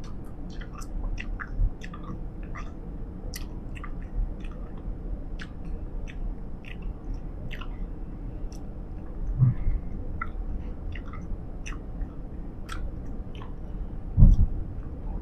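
Close-miked chewing of Big League Chew bubblegum: irregular wet clicks and smacks of the gum, about two or three a second, over a low steady rumble. Two dull low thumps, one about halfway through and one near the end.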